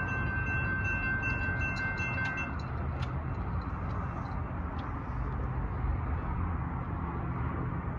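Railroad crossing bells ringing as the gates rise, cutting off about two and a half seconds in, followed by a single click. A low steady rumble runs underneath.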